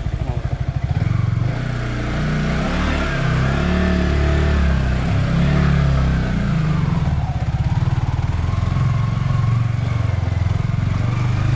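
A Yamaha sport motorcycle's engine running at low revs as the bike creeps along, its pitch rising and falling a little with the throttle.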